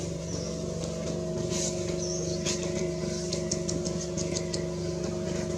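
An engine running steadily at idle, an even low hum, with a quick run of faint high ticks about three to four seconds in.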